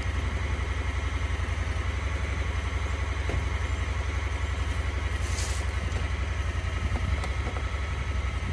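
Engine running steadily at low revs, a low even rumble with a fast regular pulse, and a short hiss about five seconds in.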